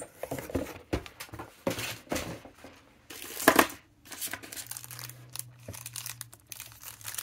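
Clear plastic sleeves crinkling as sealed pens are picked up and handled, in short irregular rustles and light ticks, with one louder rustle about halfway through.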